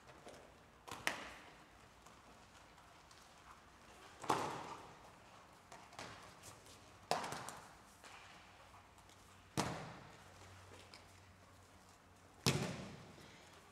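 Aikido breakfalls: bodies and slapping hands hitting the mats as partners are thrown, five sharp thuds a few seconds apart, each echoing briefly in a large hall.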